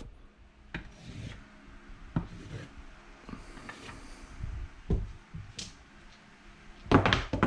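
A wooden stick rubbing and knocking on a felt-covered craps table, with a few soft knocks spaced out. Near the end comes a louder clatter as the dice are thrown and tumble across the table.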